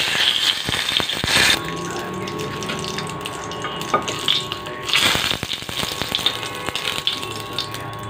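Bay leaves sizzling in hot oil in a pot, the hiss loud at the start and swelling again about five seconds in as the leaves are stirred, with a light tap of a metal spatula about four seconds in.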